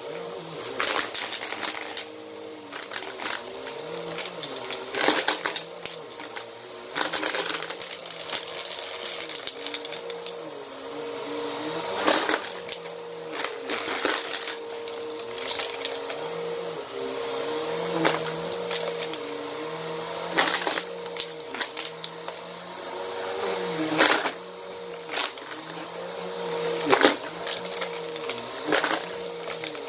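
Bissell upright vacuum cleaner running on a rug, its motor note wavering up and down. About ten loud, sharp clatters break through it, typical of coins being sucked up and rattling through the nozzle.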